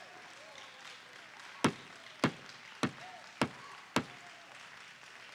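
Five sharp knocks in a steady beat, about two every second, over a faint murmur of voices.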